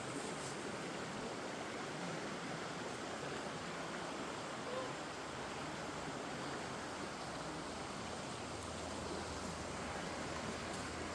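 Faint, steady rushing noise with no distinct events; a low hum joins it near the end.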